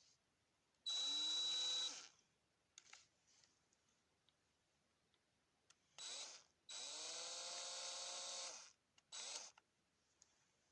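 Small electric power tool run in separate bursts: about a second, then a short blip, a longer run of about two seconds and a final blip. Each time the motor's pitch climbs quickly as it spins up, then holds steady until it stops.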